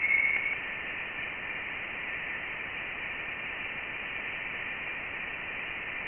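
Voyager 1 Plasma Wave Science data from interstellar space, played back as sound. It is a steady hiss with a faint pitched tone in the first half-second that then fades out. The tone is a plasma oscillation of the interstellar gas, recorded over seven months and compressed into a few seconds.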